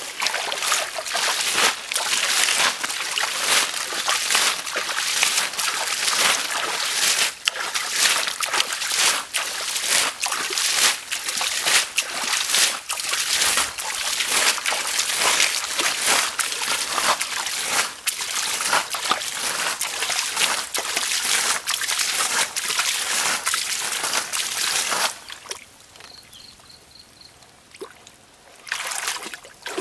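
Muddy water splashing and sloshing as it is scooped by hand out of a shallow pool and flung aside, in rapid, repeated splashes. The splashing stops for a few seconds near the end, then starts again.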